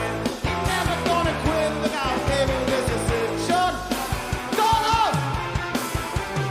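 Live garage rock band playing a song: a singer over steady drum hits, bass and electric guitar.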